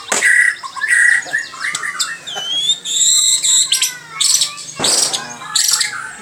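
White-rumped shama (murai batu) singing a long, varied song of whistles, trills and quick chirps, with two fast downward-sweeping notes, one near the start and one about five seconds in.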